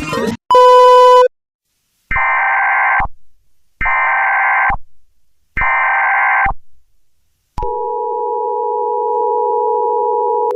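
A short, loud electronic beep, then three bursts of about a second each of Emergency Alert System SAME header data tones, followed about seven and a half seconds in by the steady two-tone EAS attention signal.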